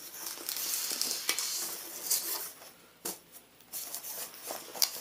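Packaging being handled: a crinkling rustle for the first couple of seconds, then a few sharp clicks and taps.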